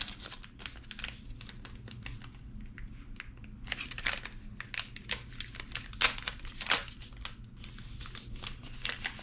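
Packaging being crinkled and rustled by hand while a lanyard is unpacked: a run of small, irregular crackles, with a few louder ones about four, six and seven seconds in.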